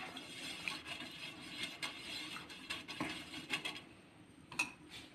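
Silicone basting brush dabbing and spreading oil across a heated tawa griddle: soft scraping strokes and light ticks that die down a little before the end, with one sharper tick near the end.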